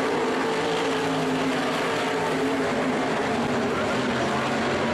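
A field of winged sportsman sprint cars racing, their engines running at speed together. Several engine tones overlap and waver a little at a steady level.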